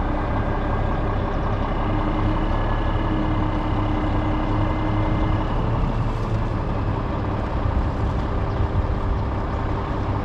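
Heavy tow truck's diesel engine running steadily, with a fainter steady whine over it during the first half.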